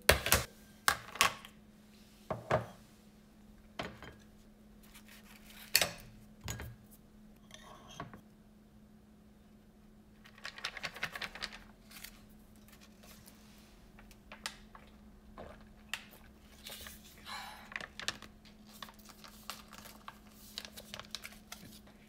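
Close-up kitchen handling sounds: a snap-on plastic lid and a glass food container clicking and knocking on a stone countertop, then a bread slice set into a small ceramic dish. A plastic pouch crinkles briefly about halfway through, followed by lighter rustles and taps. A faint steady hum runs underneath.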